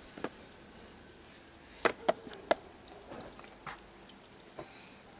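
Heavy wooden blocks knocking on wood as they are set onto the pressing plate of a wooden basket wine press. The knocks are sharp and scattered, with a cluster of four about two seconds in.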